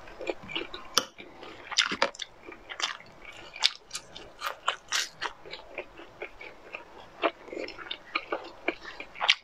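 Close-miked eating of fried, battered food coated in chili oil: wet chewing and biting with sharp, irregular crunchy clicks about twice a second.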